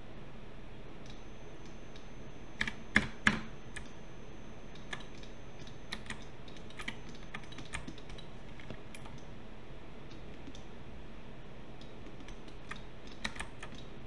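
Computer keyboard keys tapping: a short clatter of loud keystrokes about three seconds in, then scattered single clicks, and another small flurry near the end, over a steady faint hiss.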